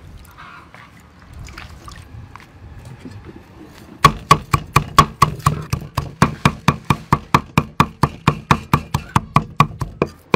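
Large kitchen knife chopping soaked red peppers on a wooden chopping board: rapid, even strokes about five a second, starting about four seconds in. Before that come quieter wet sounds of the peppers being torn apart over a bowl of water.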